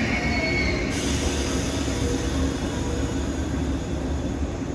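JR West 117-series electric train pulling slowly into a station platform, its wheels and running gear giving a steady low rumble. A thin high brake or wheel squeal dies away about a second in.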